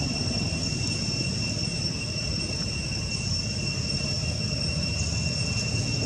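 Steady outdoor background noise: a low rumble with a constant high-pitched whine over it, unchanging throughout, with no monkey calls or distinct events.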